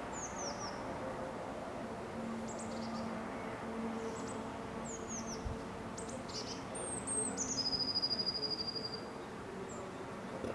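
Small songbirds calling and singing: short high chirps and quick downward-slurred notes, then a fast trill a little past halfway that is the loudest part. A low steady hum runs underneath, with one soft thump about halfway.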